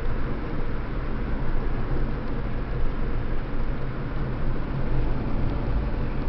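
Steady road and engine noise of a car driving at speed, heard inside its cabin.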